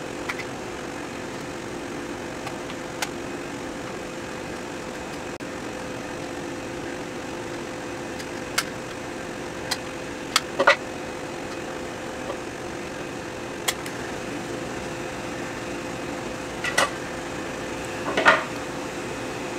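Needle-nose pliers squeezing the small plastic retaining clips of a Bitaxe heatsink give scattered sharp plastic clicks and snaps, about eight in all, the loudest near the end. A steady hum runs under them.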